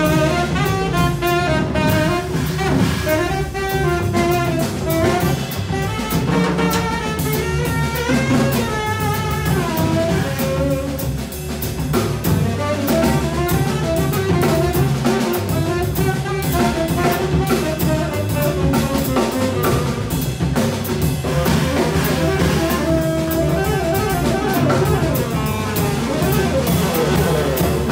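Live jazz quartet playing: a saxophone leads with a moving melodic line over piano, upright double bass and drum kit.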